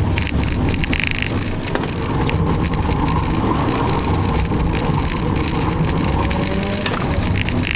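Renault Clio engine pulled hard on a cone-course AutoSolo run, its revs climbing and falling as the car accelerates and slows for the turns, heard from inside the cabin over steady tyre and road noise.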